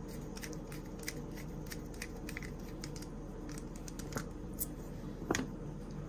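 Small bit screwdriver starting and turning a tiny screw into a Kershaw Chive pocket knife's metal handle: light, irregular metallic clicks and ticks as the bit seats and turns, with a louder click about five seconds in.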